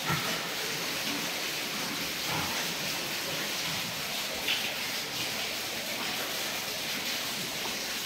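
Steady hiss and patter of falling water.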